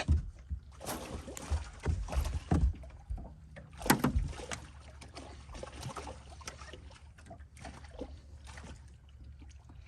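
Irregular knocks and thumps against a small aluminium fishing boat's hull, thickest in the first few seconds and thinning out after, as a hooked bass is landed into the boat.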